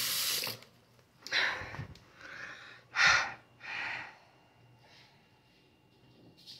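A person breathing hard in short, noisy breaths, about five in the first four seconds, the loudest about three seconds in.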